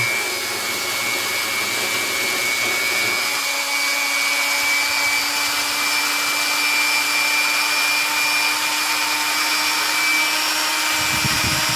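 Dremel 3000 rotary tool with a flex shaft running free and unloaded, a steady high whine over a hiss, with a lower steady hum joining about a third of the way in. The new motor and flex shaft are breaking in, not yet up to full speed.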